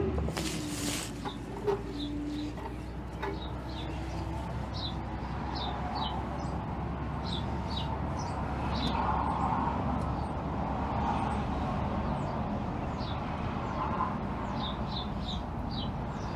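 Birds chirping: many short, high chirps that each fall in pitch, repeating every second or so over a steady low hum. A brief rattle comes about half a second in.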